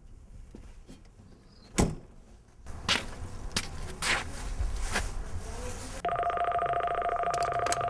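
A loud slam about two seconds in, a truck cab door shutting, then footsteps. About six seconds in, a GE multi-line office desk phone starts ringing with a steady electronic two-tone warble.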